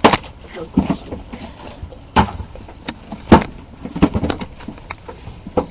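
Handling noises: a handful of sharp knocks with faint rustling between them, the loudest about halfway through.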